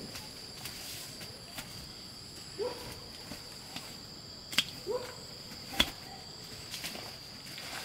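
A steady high-pitched drone of insects, with two short rising animal calls and two sharp knocks about four and a half and six seconds in, the second the loudest, as heavy jackfruits are lowered onto the ground.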